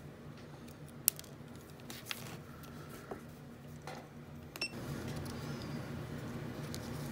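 Faint clicks and light handling noises of hands working on a micro drone and its small parts on a workbench, the sharpest click about a second in, over a low steady hum.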